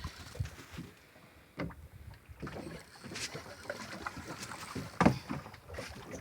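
Water slapping against a small fishing boat's hull, with irregular knocks and splashes.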